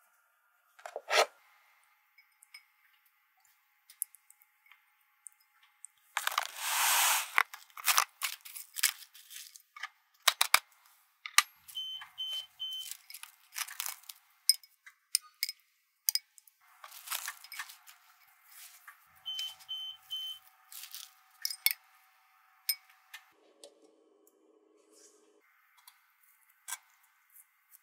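Plastic cling wrap pulled off the roll and torn with a long rasp, then crinkled over a glass bowl, among clicks and taps of handling. A microwave's keypad beeps three quick times, and then another three.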